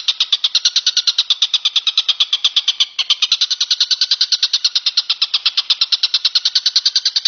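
A bird calling in a fast, unbroken series of sharp, high notes, about ten a second, with a brief break about three seconds in.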